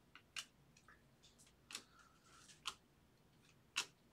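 Faint clicks of glossy baseball cards being flicked one at a time off the front of a stack and tucked behind it, about one sharp click a second with softer ticks between.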